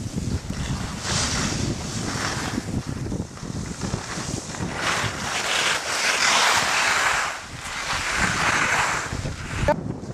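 Wind buffeting the microphone during a ski descent, with swelling hiss of skis carving and scraping across packed snow in several turns. A sharp click near the end.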